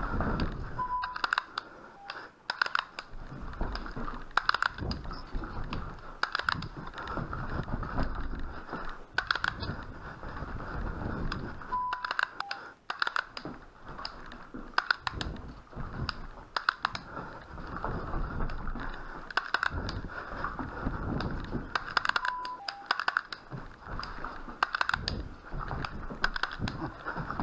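Irregular sharp clicks and knocks with low thuds over a steady hiss, and a short two-note electronic beep, high then lower, three times about eleven seconds apart.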